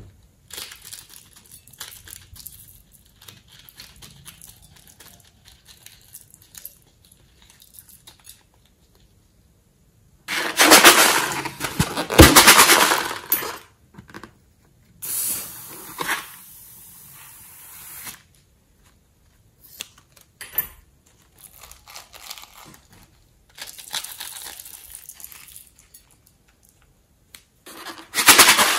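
Hands working slime ingredients over a glass bowl: a plastic piping bag crinkles faintly as sequins are squeezed out, then a balloon is snipped with scissors and emptied, with several loud noisy bursts about ten seconds in, around fifteen seconds, and near the end.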